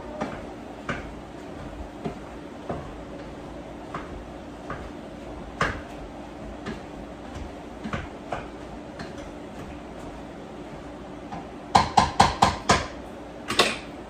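A utensil clinks and knocks against a pan on the stovetop, with a quick run of about six sharp knocks near the end. A faint steady hum runs underneath.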